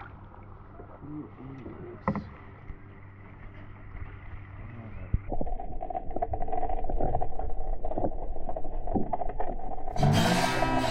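Faint voices and water around a drifting boat, then about five seconds in a sudden change to the muffled underwater sound of river water, a steady hum with many small crackles, as heard from a camera below the surface. Music starts near the end.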